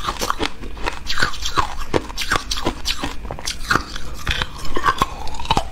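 Hard ice being bitten and chewed close to the microphone: a run of sharp, crisp cracks and crunches, about three a second, as the piece breaks up between the teeth.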